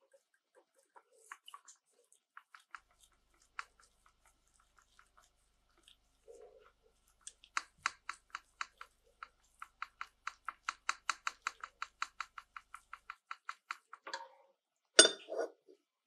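Small metal parts being handled and worked: scattered light clicks, then a fast, even run of clicks at about six a second for several seconds, ending in a single louder metallic clack.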